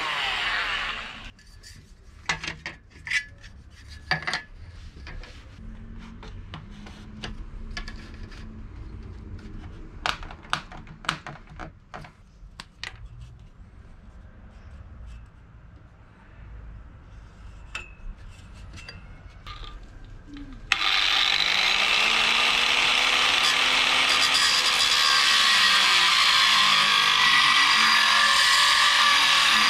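A power tool winds down in the first second. Then come scattered clicks and knocks of hand tools and a metal strip being handled. About two-thirds of the way in, an angle grinder starts cutting through the thin metal strip with a loud, steady grinding noise, its pitch wavering as the disc is loaded.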